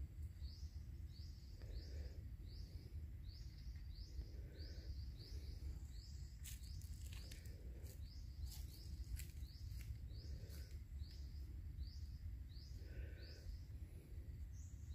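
A bird repeating one short, high chirp about twice a second, faint over a steady low rumble, with a few light clicks in the middle.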